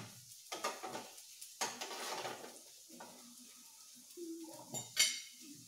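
Food sizzling on the top plate of a tabletop raclette grill, with several short clinks of utensils against plates and the grill, the loudest near the end.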